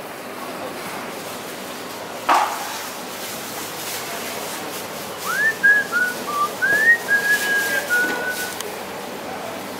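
A person whistling a short tune of about eight slurred and held notes, starting about halfway through, over steady background noise. A single sharp knock comes a little over two seconds in.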